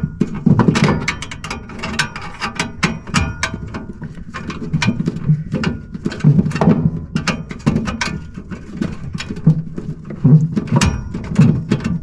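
Screwdriver working the mounting screw of a furnace's hot-surface igniter in a cramped burner compartment: dense, irregular metal clicks and scraping, with handling and rubbing noise.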